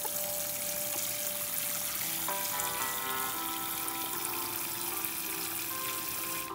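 Steady hiss of water spraying from a sink sprayer onto a soaked towel and a puppy's belly, over soft background music of held notes.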